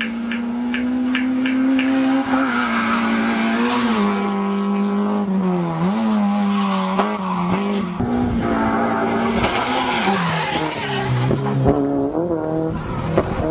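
Rally car engine running at high revs up a hillclimb. The pitch holds high for stretches, then dips and climbs again several times as the driver shifts gear and lifts for corners, with a deeper drop about eleven seconds in.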